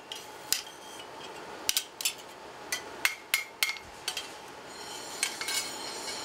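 Blacksmith's hand hammer striking a steel homi (Korean hand hoe) blank on an anvil: irregular sharp metallic strikes, some in quick pairs, each with a brief ring. Near the end a steady mechanical noise rises underneath.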